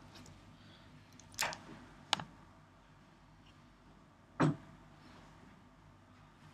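Quiet room tone broken by three short clicks and knocks spread over several seconds.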